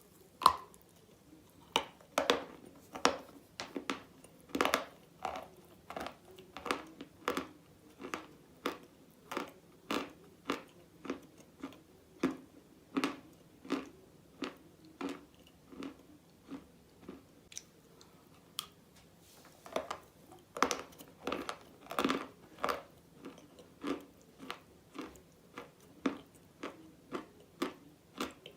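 Close-miked chewing of a brittle, chalky mineral snack with clay paste: sharp crunches about two a second. There is a short lull about two-thirds of the way through, then the chewing resumes with louder crunches.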